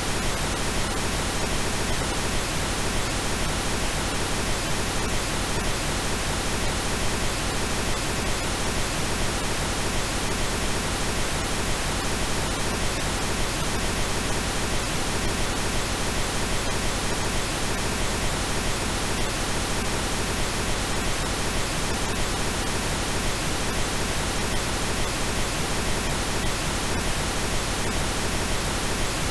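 Steady, unchanging pink noise: an even hiss spread across all pitches.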